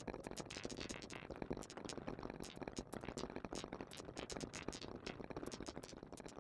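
Marbles rolling down a marble run, clicking against the track and each other in a steady, irregular patter of many small clicks.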